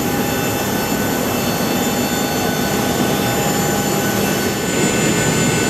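Steady cabin noise of a Boeing 737-800 on the ground before departure: a dense air rush with several steady whining tones. A little under five seconds in, the tones shift and the noise gets slightly louder.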